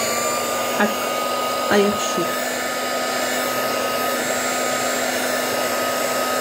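Handheld craft heat gun running steadily: fan noise with a steady whine and a low hum.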